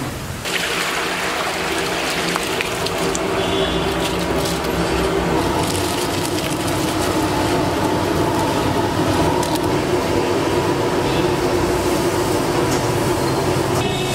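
Soaked rice being tipped into a large pot of boiling spiced water, with splashing and a steady rushing bubble of the boil. The sound jumps up about half a second in and then stays level.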